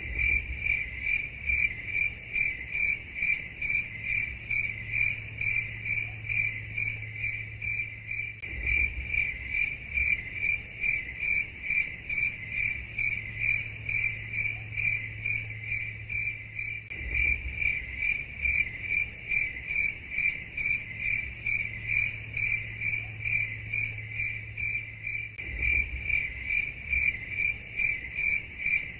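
A cricket chirping steadily in a rapid, even rhythm of high-pitched chirps, about three a second, over a faint low hum.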